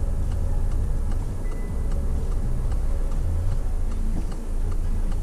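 Turn-signal indicator of a Peugeot 308 ticking at an even pace, over the steady low hum of engine and road noise.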